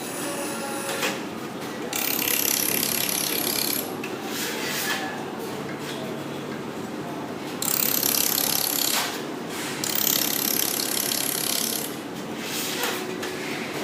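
Laser welding machine working in repeated bursts of about two seconds, each opening with a high whine that falls, over a rasping hiss.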